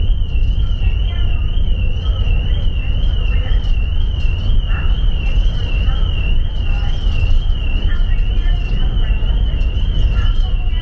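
Steady low rumble on board the cruise ferry MV Armorique under way, with a high whine that warbles up and down a couple of times a second and faint voices in the background.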